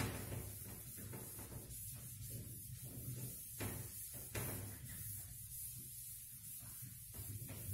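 A duster wiping marker writing off a whiteboard: a series of soft rubbing strokes over a low steady hum.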